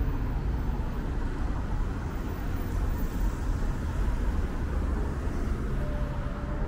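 City street traffic: cars driving past on a downtown avenue, a steady mix of engine rumble and tyre noise.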